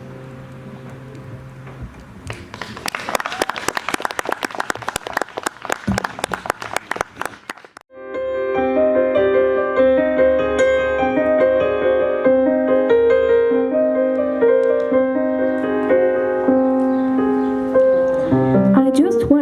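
A piano's last held notes fade. The audience then applauds for about six seconds, and the piano starts the next song's intro with slow, sustained chords.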